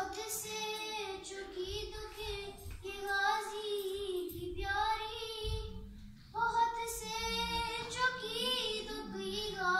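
Solo female voice chanting an Urdu salam (devotional elegy) in a slow melodic recitation, holding long wavering notes, with a short pause for breath about six seconds in.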